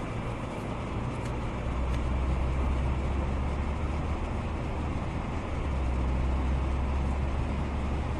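Car driving, heard from inside the cabin: a steady low engine and road rumble with an even hiss over it.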